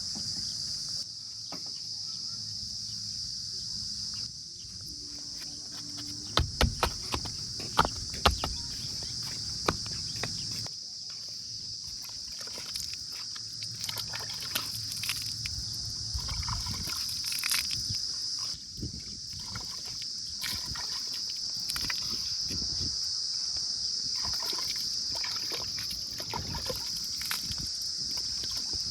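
Crickets chirring in a steady high-pitched drone, with scattered sharp clicks and knocks, the loudest of them in a cluster about six to ten seconds in.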